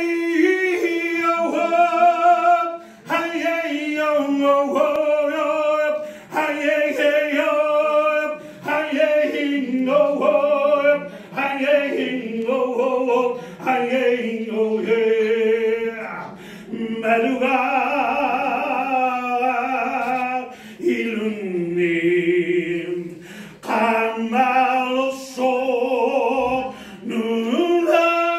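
A man singing unaccompanied, phrase after phrase, with a few long held notes that waver in the middle.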